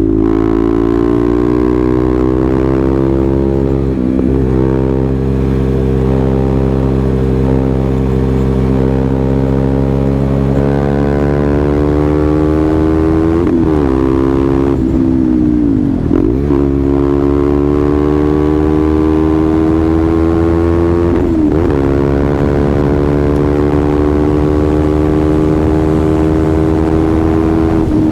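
KTM Duke 390's single-cylinder engine running under load, its pitch climbing slowly and dipping sharply four times as gears change.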